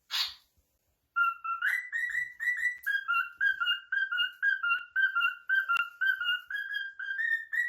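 Cockatiel whistling a song: a quick run of short, clear whistled notes, about four a second, starting about a second in and briefly stepping up in pitch. A short harsh rasp comes at the very start, and a single click about halfway through.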